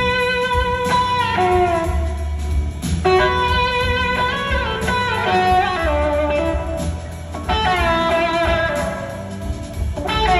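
Electric slide guitar solo on a red SG-style guitar, played live through an amplifier: long sustained notes that glide smoothly between pitches, with a fresh note struck every couple of seconds.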